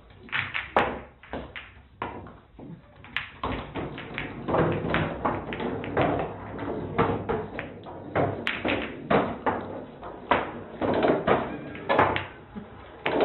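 Irregular taps, knocks and thumps of an animal moving about on a hard kitchen floor.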